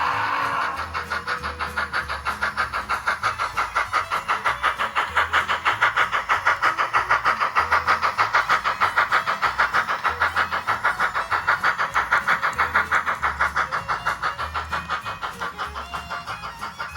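Model train running past on its track, wheels clicking rapidly over the rail joints at about five ticks a second, growing louder as it approaches and fading as it moves away.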